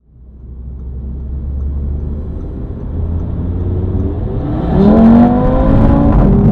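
Audi RS3's 2.5 TFSI turbocharged five-cylinder engine heard from inside the cabin on the move. It is a low drone at first, then the engine note climbs under acceleration from about four and a half seconds in. The note drops suddenly near the end as the S tronic gearbox shifts up.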